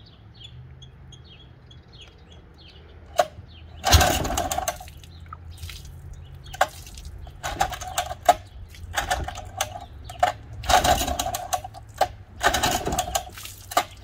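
Old outboard motor being pull-started by hand: a series of about seven pulls on the recoil starter cord, each a brief rasping crank, the loudest about four seconds in. Birds chirp during the first few seconds.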